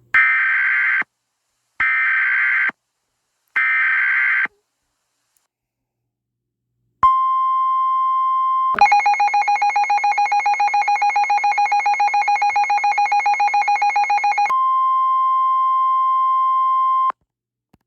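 Emergency Alert System tornado warning on NOAA Weather Radio. It opens with three short screeching SAME digital header bursts, then after a pause the steady 1050 Hz warning alarm tone sounds for about ten seconds. For about six seconds in the middle, a rapidly pulsing alarm beeps over the tone.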